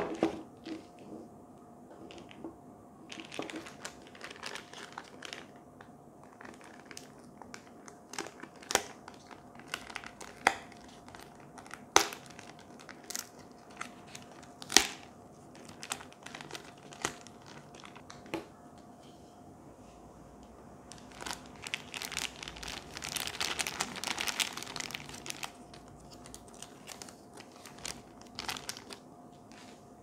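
Clear plastic packaging bag crinkling as it is handled and pulled open, with sharp clicks scattered through it. The longest, loudest crinkling comes about two-thirds of the way in.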